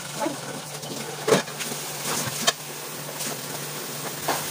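Kitchen clatter over a steady low hum: a few sharp knocks of utensils and cookware, the loudest about a second and a half in and another about a second later.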